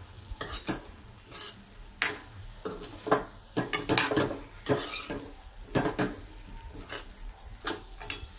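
Metal spatula stirring a thick sago-and-potato mixture in a metal kadhai: repeated scrapes and clinks against the pan in irregular strokes, roughly one or two a second.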